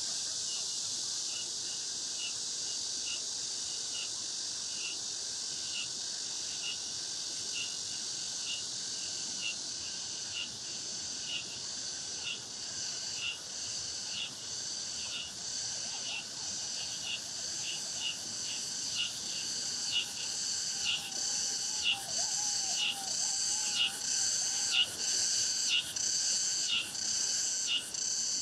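Cicadas in summer trees shrilling in chorus, with a rhythmic, pulsing song that grows louder over the second half.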